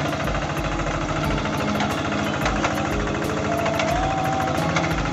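Quick G3000 Zeva hand tractor's single-cylinder diesel engine running steadily under load as the tractor ploughs dry soil, with a fast, even pulsing beat.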